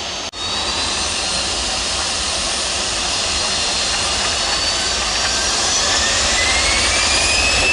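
Jet airliner engines running with a steady rush and a high whine that rises in pitch over the last few seconds, getting slightly louder. The sound cuts out very briefly about a third of a second in.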